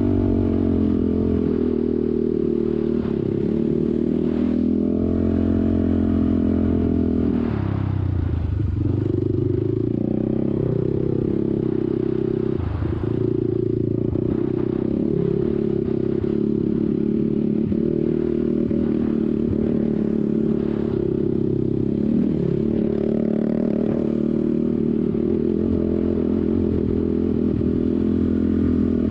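ATV engine running steadily under way across sand dunes, with the throttle eased off about eight seconds in and again around twelve seconds, the pitch dropping and then climbing back.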